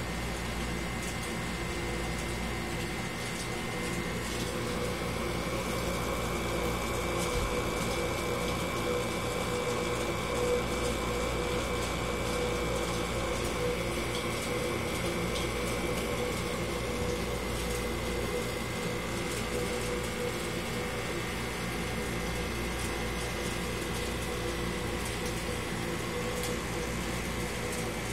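Aquarium pump running: a steady hum with a few constant tones over an even hiss.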